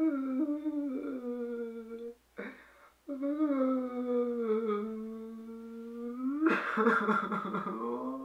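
A young man crying: two long, drawn-out wails with a short sharp breath between them, breaking into gasping sobs near the end.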